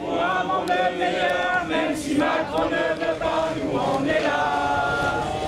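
A crowd of voices singing a protest song together in unison, with long held notes.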